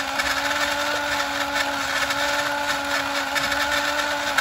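Electric drive motor and gearbox of a 1985 Radio Shack 4x4 Off Roader RC truck running at a constant speed, giving a steady whine over a gritty gear whir.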